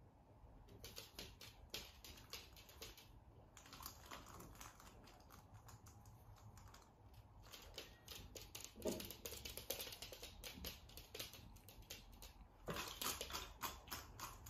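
Faint, rapid clicking and clattering of dry treats in the spring-mounted cup of a cat treat toy as a cat noses and paws at it, coming in bursts with a brief knock a little before the 9-second mark.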